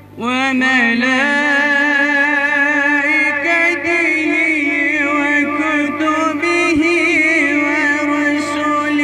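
A boy's voice through a microphone chanting a long melodic phrase, entering suddenly and holding drawn-out notes with wavering ornaments almost without a break, in the manner of Quranic recitation.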